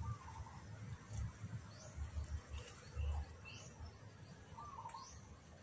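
Birds calling: a string of short, high rising chirps and a warbling call heard twice, near the start and near the end, over a faint steady high insect hum, with low thumps on the microphone.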